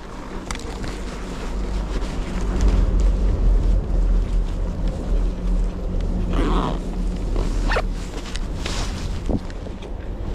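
Wind buffeting the microphone in a snowstorm: a low rumble that swells a couple of seconds in and eases off near the end.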